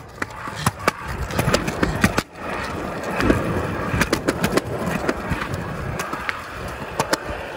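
Kick scooter's small wheels rolling fast over a concrete sidewalk: a steady rumble broken by many sharp clicks as the wheels cross the joints and cracks between slabs, with a brief lull a couple of seconds in.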